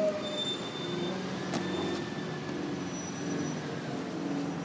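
City street traffic with a heavy vehicle's engine running steadily. Two short sharp knocks come about a second and a half and two seconds in.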